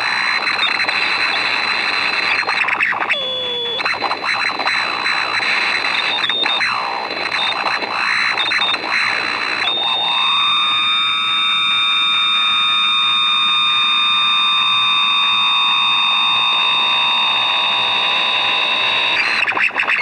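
Electrical interference from a MOSFET switching circuit run by an NE555N timer, heard through a Grundig G8 AM radio: a loud, harsh noisy hiss and buzz with a steady high whistle and sweeping tones. About halfway through it changes suddenly to steadier layered whistles, one slowly falling in pitch, the kind of shift the uploader puts down to the underdriven 555 timer flipping between operating modes.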